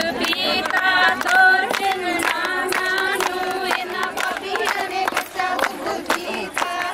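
A group of women singing a Punjabi folk song (boli) together in chorus, with quick, rhythmic hand clapping keeping the beat throughout.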